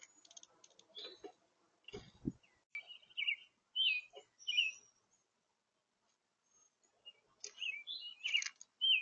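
Small songbird chirping: short, high, quickly sweeping chirp notes in two bursts, one a few seconds in and another near the end. There is a dull knock about two seconds in.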